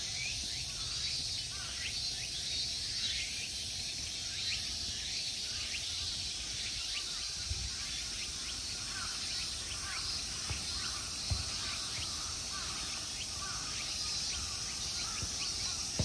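Summer insect chorus, a steady dense high-pitched buzz, with short bird chirps over it and a few low thumps near the middle.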